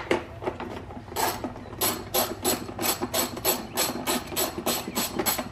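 Ratchet wrench with a 10 mm socket backing out a bolt, a few irregular knocks at first, then an even run of sharp clicks, about three and a half a second, as the ratchet is swung back and forth.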